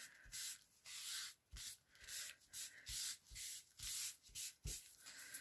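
A small foam ink applicator rubbed over the edges of paper in quick back-and-forth strokes, about two a second, each a short dry scratchy swish: inking and distressing the page edges.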